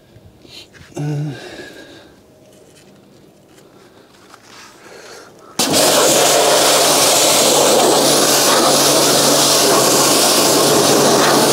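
Pressure washer starting abruptly a little over halfway through and running steadily: the motor and pump hum under the loud hiss of the jet spray blasting cleaner off a car's springs, suspension and wheel arch.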